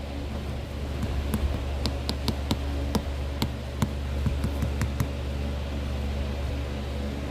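A steady low hum, with a scatter of short, sharp clicks in the first two-thirds.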